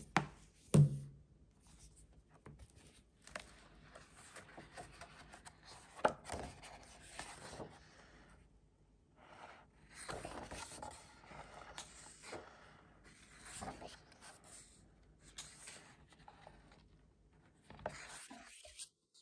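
Paper pages of a hardcover picture book being turned and handled, rustling and sliding in irregular bursts, with a thump about a second in.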